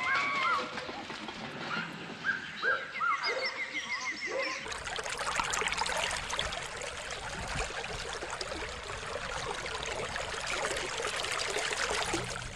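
A few short chirping animal calls and a quick trill, then, about four and a half seconds in, a switch to the steady rush of a shallow river flowing over rocks.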